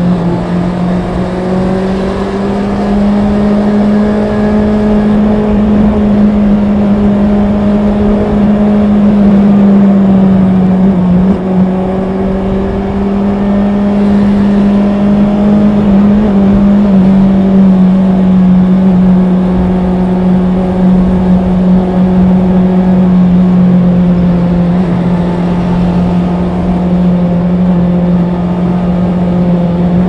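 Honda CB650R's inline-four engine running under way at a fairly steady pitch, the note drifting slightly up and down and easing a little lower about halfway through, with a brief dip in level about a third of the way in.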